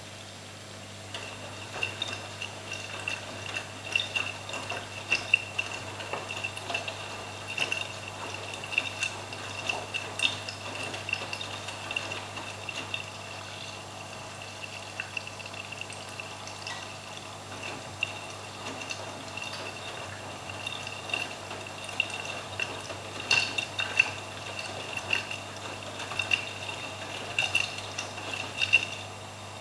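AEG Lavamat 86760 front-loading washing machine tumbling wet laundry in its drum during the wash, with water sloshing and splashing and irregular small clicks and clinks over a steady low hum. The splashing is busiest in the first half and again near the end, easing off in between.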